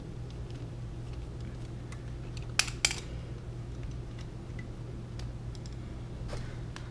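Small ticks and clicks of a T25 Torx driver and a fairing screw being handled, with two sharp metallic clicks close together about two and a half seconds in, over a steady low hum.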